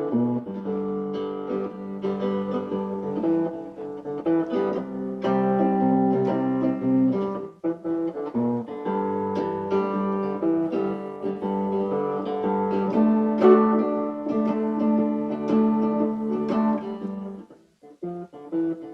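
Instrumental music on plucked guitar, with a brief pause part way through.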